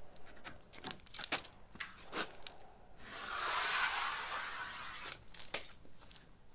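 Light pencil scratches and taps on plywood as a line is marked, then about three seconds in a rushing whir lasting about two seconds that swells and fades as a steel tape measure's blade runs, followed by a few more clicks.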